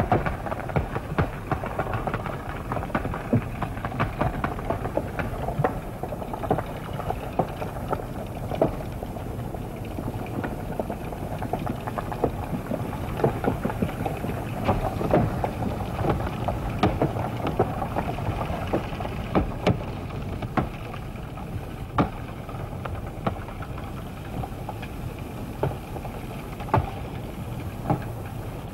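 Underwater lava eruption: a steady low rumble with frequent crackles and pops throughout.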